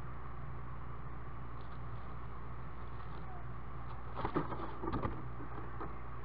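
Screech owl's talons scrabbling and knocking on the wooden nest-box wall in a quick flurry about four seconds in as it climbs up and out of the entrance hole. Underneath is a steady low hum and hiss.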